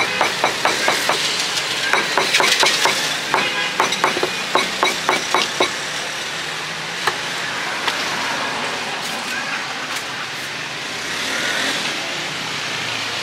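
Knife chopping fruit on a cutting board in quick, even strokes, about four a second, stopping about six seconds in. After that, steady street traffic noise with a couple of single knocks.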